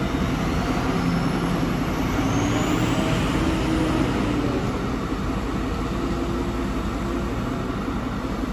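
Vehicle engine running steadily with a low rumble, and a faint rising whine a couple of seconds in.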